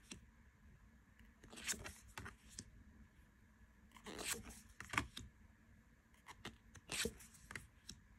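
Tarot cards being handled: about half a dozen short papery swishes and rustles as cards are slid one after another off the front of a hand-held deck.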